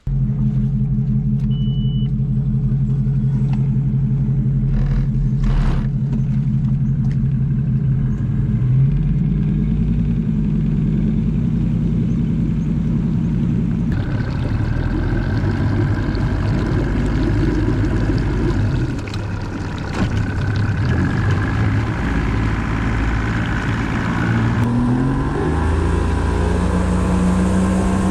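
Boat outboard motor running, rising in pitch as it speeds up about eight seconds in, with a loud rush of wind and water noise joining from about fourteen seconds in. Near the end it rises in pitch again.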